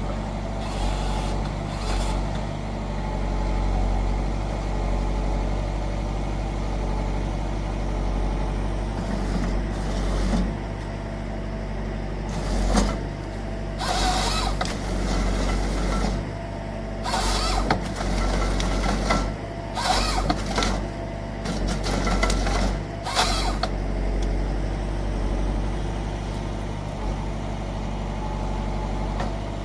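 Forestry harvester with a Nisula 325H head at work: its engine runs steadily under a string of short, harsh bursts of noise through the middle, from the head cutting and feeding timber.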